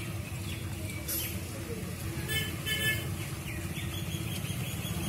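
Street traffic: a steady low rumble of vehicles, with two short high-pitched sounds about halfway through.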